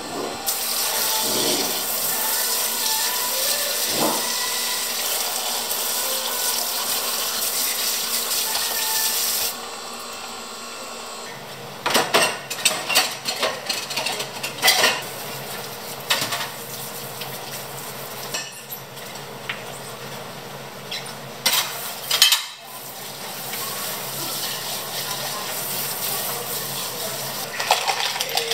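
Faucet water running into a stainless steel sink for about nine and a half seconds. Then ceramic dishes and a steel milk pitcher clatter and knock as they are washed, with water running again afterwards. Near the end comes a quick rattle of ice cubes going into a plastic cup.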